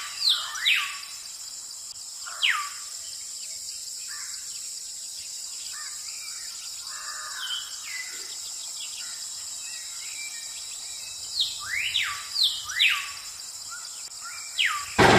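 Birds calling with quick downward-sliding whistles, in short bunches near the start and again late on, over a steady high insect drone. A loud noise cuts in at the very end.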